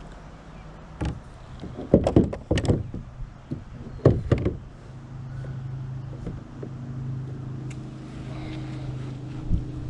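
Several hard knocks and clatters from plastic kayak fittings being handled against the hollow hull, in two short clusters. A steady low hum sets in about halfway through.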